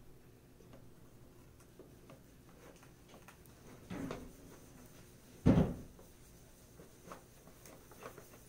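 Two dull knocks in a quiet room, the first about four seconds in and the second, louder, about a second and a half later, with a few faint ticks between.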